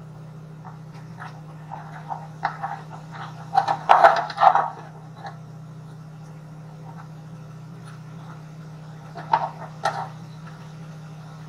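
Short metal knocks and clanks as a C-clamp and a steel angle-iron leg are handled and fitted against a steel tank, in a few clusters with the loudest run about four seconds in and another near the end, over a steady low hum.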